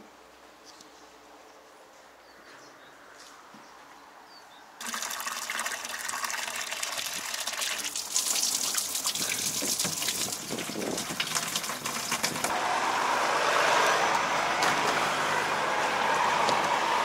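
Water pouring from a tap into a 10-litre plastic canister, starting suddenly about five seconds in after a quiet stretch. About twelve seconds in the pour changes and takes on a fuller tone as the canister fills.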